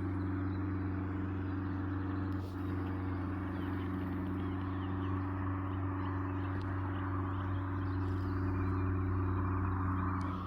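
Light aircraft piston engine running with a steady low drone, growing slightly louder near the end.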